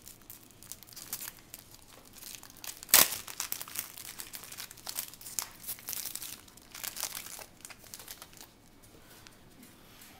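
Wrapper of a jumbo pack of trading cards crinkling as it is handled and opened, with one loud sharp tear about three seconds in. It goes quieter near the end.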